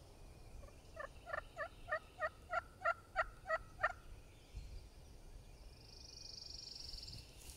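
Wild turkey calling: a series of about eleven short, evenly spaced notes, about three or four a second, growing louder over some three seconds.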